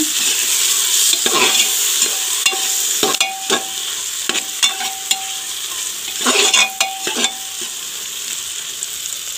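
Onion, tomato and spice masala frying in oil in an aluminium pressure cooker, sizzling steadily, while a metal ladle stirs and scrapes against the pot, about a dozen strokes, several leaving a brief ring.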